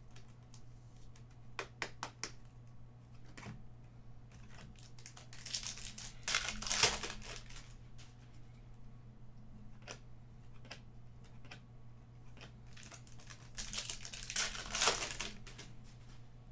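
Foil wrappers of baseball card packs crinkling and tearing as the packs are ripped open by hand. This comes in two rustling bursts, the first about five seconds in and the second about eight seconds later, with a few light clicks of card handling before them.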